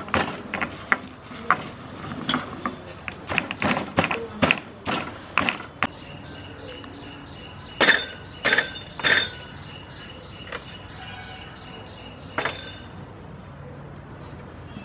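Stone pestle pounding dry roasted lentils and sesame in a stone mortar, a quick run of sharp knocks. After about six seconds the pounding stops and a few single heavy knocks follow as the stone pestle and mortar are handled and set down on a wooden table.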